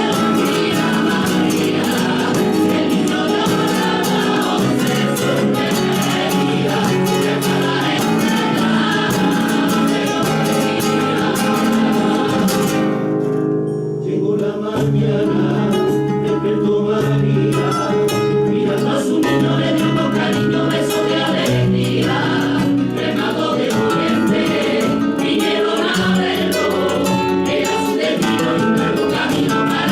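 Music: a Christmas carol (villancico) sung by a choir, with a short lull about halfway through.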